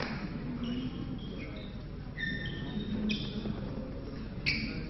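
Badminton hall ambience: short high squeaks of court shoes on the sports floor, with sharp clicks about three seconds and four and a half seconds in, over a low hall hum and faint distant voices.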